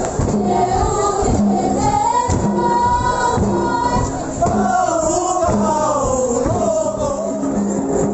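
Voices singing together in a wavering chant over a regular beat: the song that goes with a Timorese tebe line dance.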